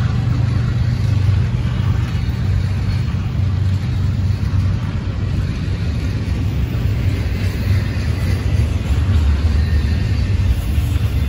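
A heavy engine running steadily, a continuous low rumble.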